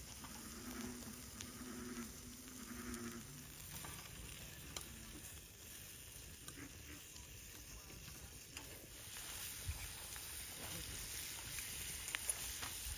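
Open wood fire under a grill grate, crackling with scattered sharp pops, while food sizzles faintly in skillets on the grate. A faint low pitched sound breaks in and out during the first three seconds.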